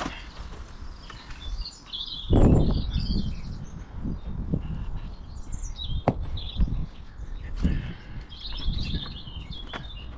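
Birds chirping and singing throughout. About two seconds in there is a loud, brief low thump, with scattered sharp knocks later, as plastic soakaway crates are shifted and set into the hole.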